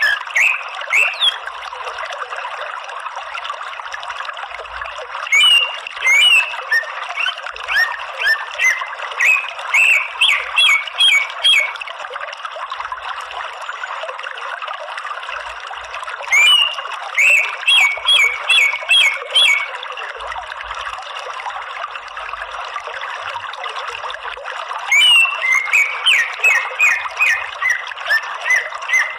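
Greater green leafbird (cucak ijo) calling in four bursts of rapid, sharp chattering notes, each a few seconds long, over a steady hiss.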